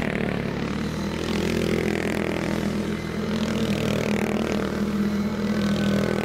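Speedway motorcycle's 500 cc single-cylinder methanol engine revving hard as the bike is slid through a turn on loose dirt, its pitch rising and falling.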